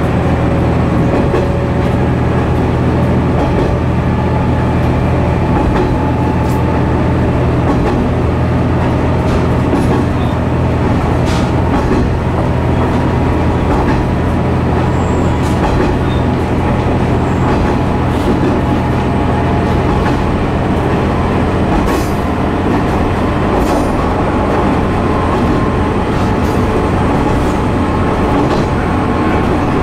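Kumagawa Railway KT-500 diesel railcar running along the line, heard from inside the car: a steady diesel drone with scattered clicks of the wheels over rail joints. About two-thirds of the way through, the engine's steady low note drops away.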